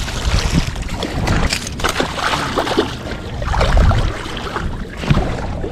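Shallow water splashing and sloshing around a wader's legs and a small landed bluefish, irregular and continuous, with its loudest surge about four seconds in.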